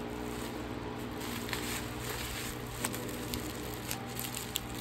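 Plastic bubble wrap crinkling and rustling as hands squeeze and turn a wrapped item, with a few sharp crackles, over soft background music with held notes.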